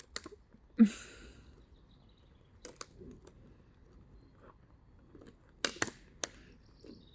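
Scattered sharp snaps and cracks of dry twigs while a small campfire is being kindled, a few single cracks with pauses between, and a short rushing burst about a second in that is the loudest sound.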